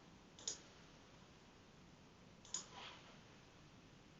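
Two faint, sharp computer mouse clicks about two seconds apart, over low room hiss.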